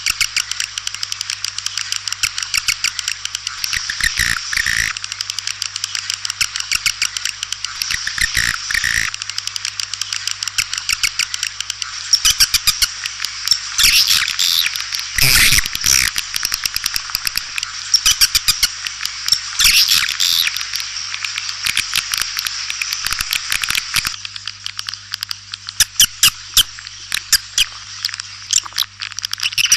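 White-nest swiftlets twittering: a dense, unbroken chatter of rapid chirps and clicks, the swiftlet call sound played to lure swiftlets into a nesting house. It swells louder for a few seconds around the middle, over a steady low hum.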